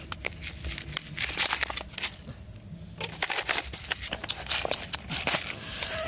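Plastic being handled, crinkling and crackling with many small clicks, in two spells with a short lull about two seconds in.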